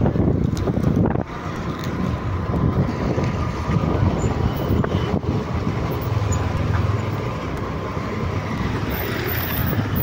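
Ride-along sound from a motorbike in motion: its engine running with wind buffeting the microphone, a steady low rumble. A second motorbike running close alongside adds a stronger low hum about six seconds in.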